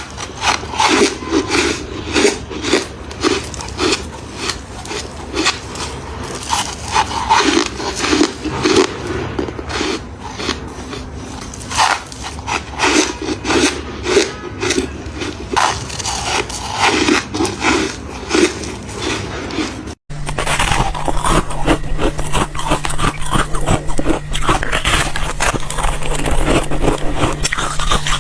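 Freezer frost being bitten and chewed close up: rapid crisp crunches, several a second. The sound cuts out briefly about twenty seconds in, and after that a steady low hum runs under the crunching.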